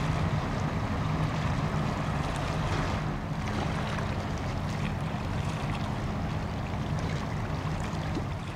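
Low, steady drone of a ship's engine across the water, mixed with wind blowing on the microphone and the wash of the canal.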